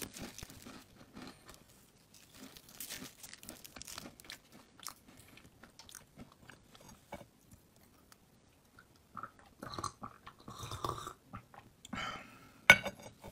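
Crunchy slime crackling and crunching in a run of soft, scattered crackles. They get denser about ten seconds in, and there is one sharp click near the end.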